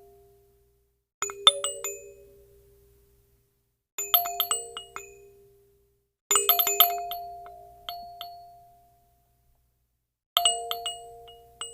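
A short, bright chime jingle, like a cute notification tone or ringtone. It plays four times with silences between. Each time, a quick flurry of bell-like dings rings out and fades over about two seconds.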